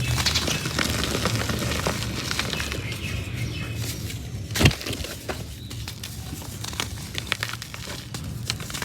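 Soft, slightly damp reused cement being crumbled by hand: a continuous run of small crackles and crunches, with one louder thud about four and a half seconds in.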